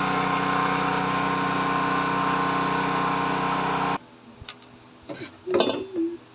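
A small engine running steadily, a constant hum that cuts off abruptly about four seconds in, followed by a few faint brief knocks.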